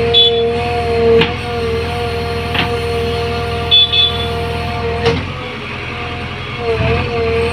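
JCB backhoe loader's diesel engine running with a steady hydraulic whine, heard from inside the cab. The whine dips in pitch briefly a few times as the backhoe arm and bucket work the soil, and several sharp metallic clunks come from the arm.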